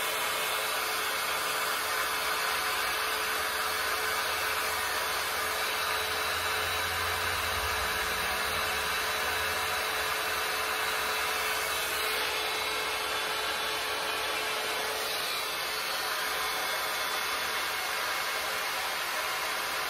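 Babyliss hot air brush styler running steadily, its fan blowing hot air as it is worked through a section of hair. The sound is a continuous whirr with a faint steady hum.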